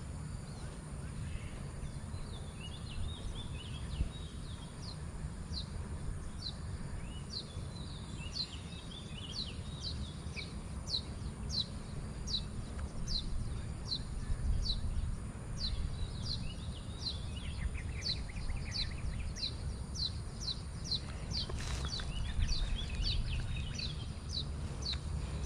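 Birds calling in open country: one bird repeats short, high, falling notes a little faster than one a second, with bursts of softer chattering calls from others. A low steady rumble runs underneath.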